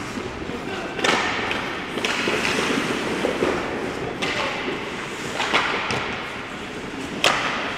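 Ice hockey play: skate blades scraping on the ice under a steady rink hiss, with a few sharp clacks of sticks and puck about one, four, five and a half and seven seconds in.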